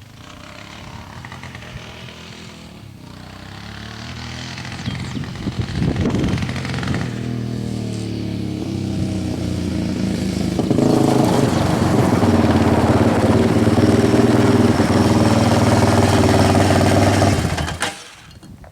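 Yamaha Raptor 660 ATV's single-cylinder engine running, growing louder over several seconds and then holding loud and steady before stopping abruptly near the end.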